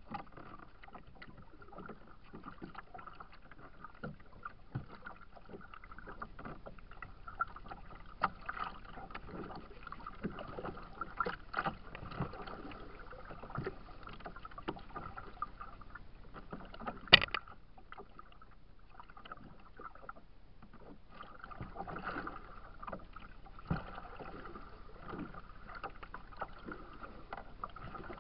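Choppy lake water lapping and slapping against a kayak's hull, with irregular small knocks throughout and one sharp knock about two-thirds of the way through.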